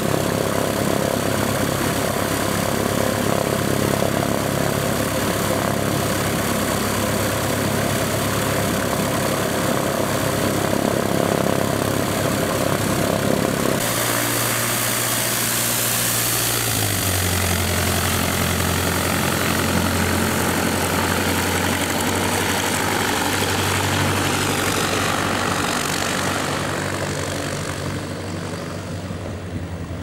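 Light aircraft's piston engine and propeller running steadily close by. The engine note changes abruptly about 14 seconds in, and the sound fades toward the end.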